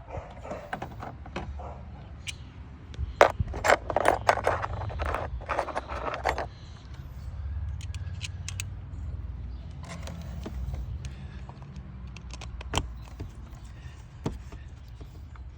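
Small metal parts and hand tools clinking and scraping as an ignition coil's retaining screw is started by hand in the engine bay. A dense run of clatter comes a few seconds in, with scattered single clicks after it.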